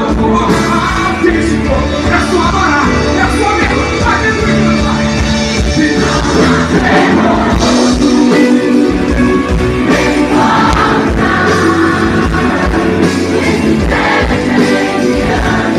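Live band music with electric guitar and a male vocalist singing into a microphone, played loud and continuous.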